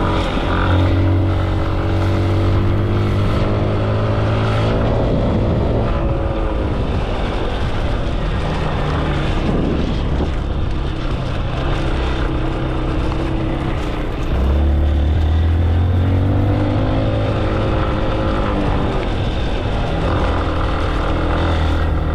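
Vehicle engine under way, its pitch rising and falling several times as it speeds up and eases off.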